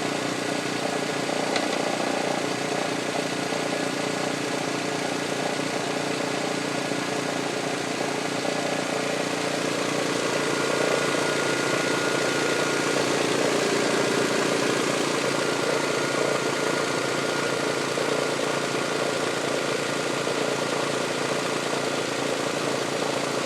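Toyota 1MZ-FE V6 engine of a 1999 Sienna running steadily near idle, coming up a little about halfway through. This is the knocking or tapping noise the owner is chasing, which to him sounds like something hitting the valve cover.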